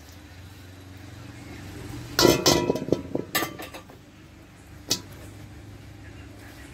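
Metal clanking and ringing on an iron wok: a quick run of clanks about two seconds in and a single clank near five seconds, over a steady low hum.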